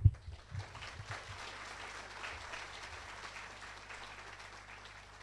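Audience applauding, fading gradually, with a single thump right at the start.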